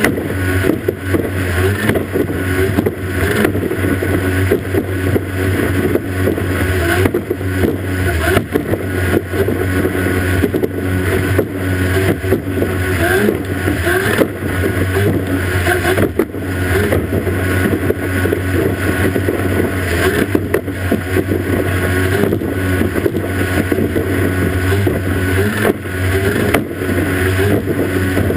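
Outboard motor of a racing powerboat running at speed with a steady low drone, mixed with the rush of water and spray and irregular knocks as the hull hits the waves.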